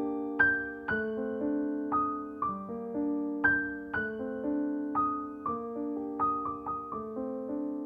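Gentle piano music: single notes and soft chords struck about twice a second, each ringing and fading before the next.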